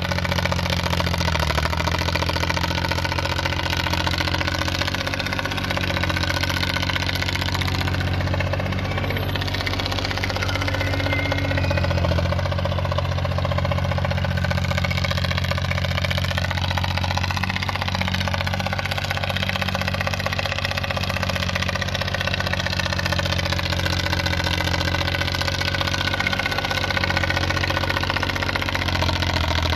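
Engine of a small wheel loader running steadily as the machine drives over and shifts a dirt pile, with slight changes in pitch as it works.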